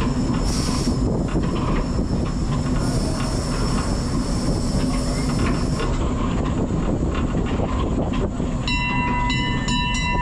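1890 Cockerill steam tram locomotive running along tram rails, heard from aboard: a steady rumble and clatter of wheels on track, with hisses of steam about half a second in and again for a few seconds midway. A high ringing tone sounds on and off near the end.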